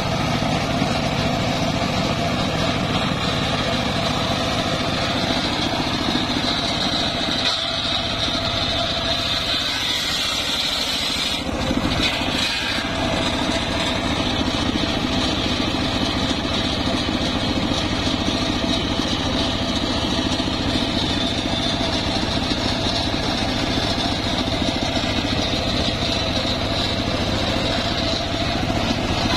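Homemade circular sawmill running steadily: its engine drives the big saw blade, which gives a steady high whine over the engine's hum, with a brief change in the sound about twelve seconds in.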